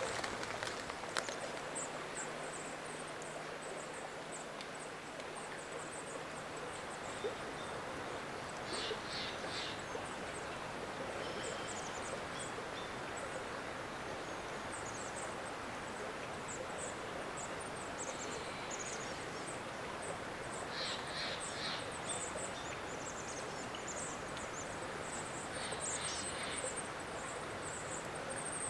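Steady rush of running water and rain in a forest. Short, high, thin bird calls recur over it, with a few brief clusters of sharper chirps.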